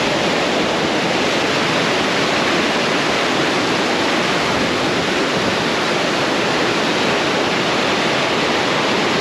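Fast-flowing water rushing steadily and loudly, an even wash of noise that covers everything else.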